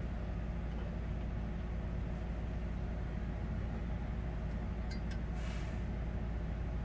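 Steady low drone of an idling diesel engine, heard inside a truck cab, with a brief faint scrape and a couple of small clicks about five seconds in.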